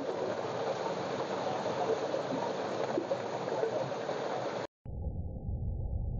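Steady rushing of water gushing from a pipe, with a few faint knocks from stirring in a clay pot. About three-quarters of the way through it cuts off and a duller, low rumbling noise takes over.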